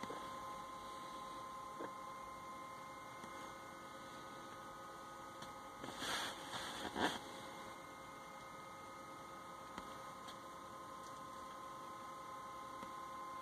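Steady electrical hum with a few faint clicks. About six seconds in there is a brief rustle, ending in a sharper click about a second later.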